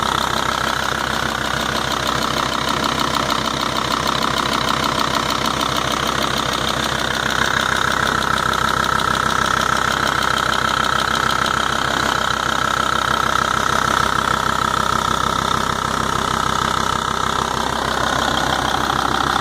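Volvo-Audi 2.5 TDI turbodiesel engine idling steadily with a fast, even ticking whose cause the owner does not know.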